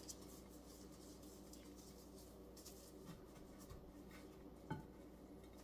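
Faint scratching and rustling of gloved hands rubbing a dry cure into raw goose breasts in a baking dish, with a small tap near the end.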